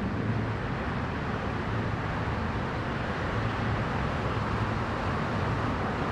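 Steady roar of distant road traffic.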